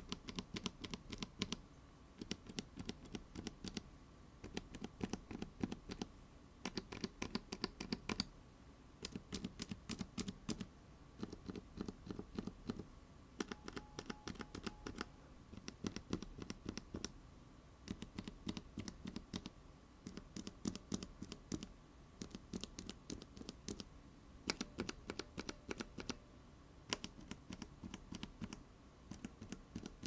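Bare mechanical keyboard switches without keycaps, a mix of clicky, tactile and linear types from Akko and others, pressed repeatedly by a fingertip in an acrylic switch tester: sharp plastic clicks and clacks on each press and release. The presses come in quick runs, one switch after another, with short pauses between them.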